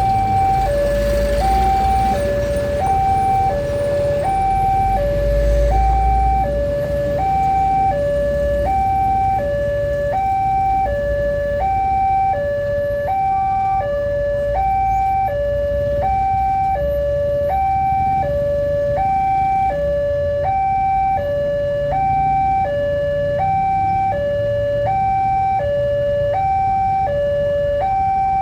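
Railway level-crossing warning alarm sounding steadily, an electronic two-tone signal alternating between a higher and a lower note, each held for well under a second: the signal that a train is approaching the crossing. A low rumble underneath is strongest in the first few seconds.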